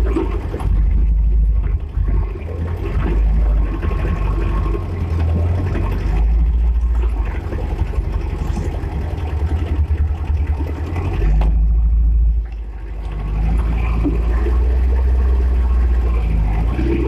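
Wind buffeting the microphone: a loud, gusting low rumble that rises and falls irregularly, easing off briefly about twelve seconds in.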